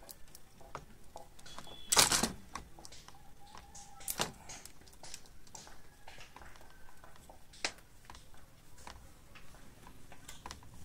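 Scattered small clicks and rustles of hands working a stripped wire onto a fan regulator's terminal on a plastic switchboard, with a louder sharp knock about two seconds in and lighter ones near four and seven seconds.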